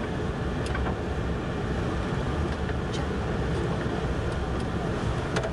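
Steady low rumble of a bus's engine and road noise heard inside the cabin while it drives, with a few faint clicks and rattles.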